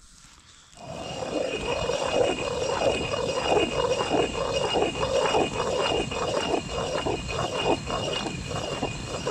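Hand-turned stone quern grinding grain into flour: the upper millstone, turned by a wooden stick handle, grinds round on the lower stone with a rhythmic stone-on-stone grinding that starts about a second in.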